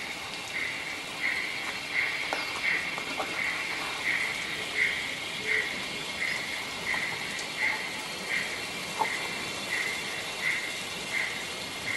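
Sound-decoder steam chuff from a 009-gauge model steam locomotive's small onboard speaker: even, slow beats about one and a half a second as it pulls at low speed, over a steady hiss.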